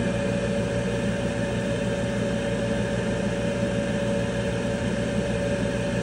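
Magic-Pak furnace inducer motor running steadily, a hum with a constant whine over it. Its fan blades had been seized by a bug nest and are now cleared, so the motor runs again.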